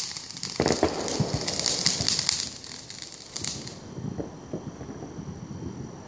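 Fireworks crackling: a dense run of rapid small pops with a low bang about half a second in, thinning to scattered pops about four seconds in.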